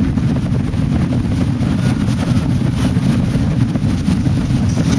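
Motorboat running at speed: a steady, loud, low rumble of engine and hull on the water, with wind buffeting the microphone.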